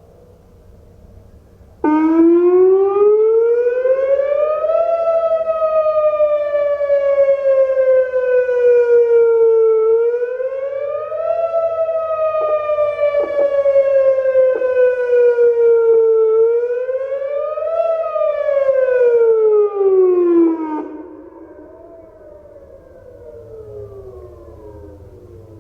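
Whelen WPS 2805 electronic siren, malfunctioning and able to sound only its alert and attack tones, starting abruptly and sounding a slow rising and falling wail. The pitch climbs and drops three times over about 19 seconds, then cuts off sharply. A fainter wail carries on after the cut-off.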